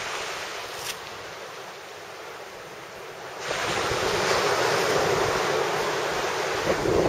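Rushing noise of wind and surf. About three and a half seconds in it swells suddenly and stays louder, with wind buffeting the microphone.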